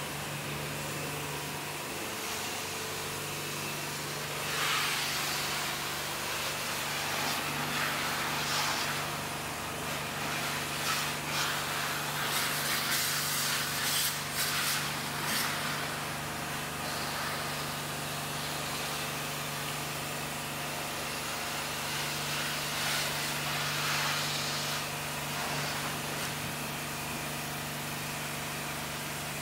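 Pressure washer at work: a steady motor hum under the hiss of the high-pressure water jet striking a car's bodywork, the spray noise swelling louder in several spells.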